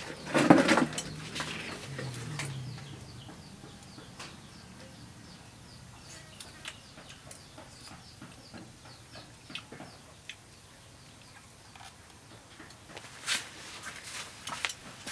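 Farmyard animal calls and small birds chirping: a loud animal call about half a second in, a lower wavering call around two seconds, then faint repeated chirps, with a few sharp clicks near the end.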